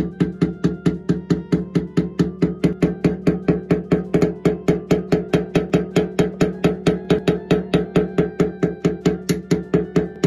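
Rapid, even tapping on a motorcycle's metal fuel tank, about five ringing taps a second, typical of tapping down a dent during paintless dent repair. Background music plays underneath.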